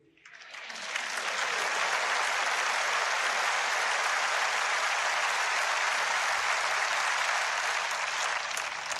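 A church congregation applauding: the clapping builds up in the first second, holds steady, and dies away near the end.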